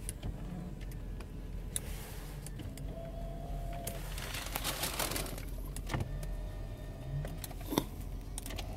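Electric power-seat motor in a 2009 Mercedes-Benz SL550 whining steadily for about a second and a half, a few seconds in, with rustling and scattered clicks over a steady low hum.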